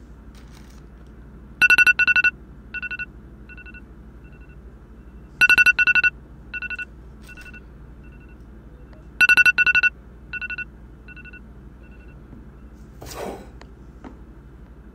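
Smartphone ringtone: a bright two-note electronic beep pattern that comes three times about four seconds apart, each time two loud beeps followed by fading repeats. A short swish near the end.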